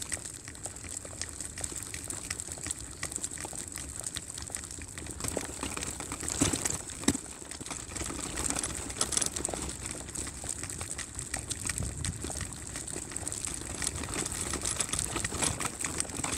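A baby buggy rolling along a paved village street: steady crackling and rattling from the wheels and frame over a constant hiss, with a couple of louder knocks about six and seven seconds in.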